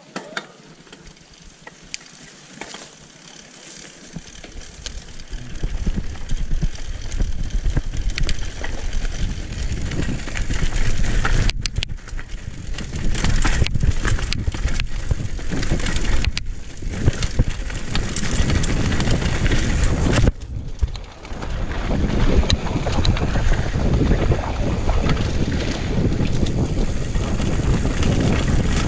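Wind buffeting the camera microphone and the rumble and rattle of a mountain bike running fast down a rough dirt singletrack. It is fairly quiet at first and becomes loud and steady about five seconds in as speed builds, with scattered sharp knocks from the trail.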